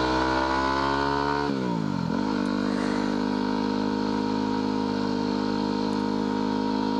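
2010 Yamaha WR250R's single-cylinder four-stroke engine running under way: the engine note climbs slowly, drops sharply about a second and a half in, then holds steady at cruising speed.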